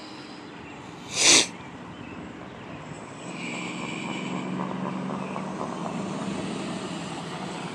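A short, loud rush of noise about a second in. Then, from about three seconds in, a vehicle's engine drone swells up and holds steady.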